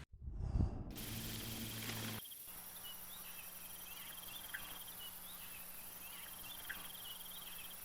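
Crickets trilling steadily at night: a high, fast pulsing chirp with scattered short calls over it. A brief thump comes about half a second in.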